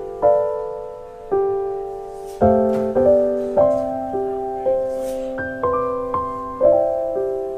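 Slow, gentle solo piano music: single notes and chords struck every half second to a second, each left to ring and fade.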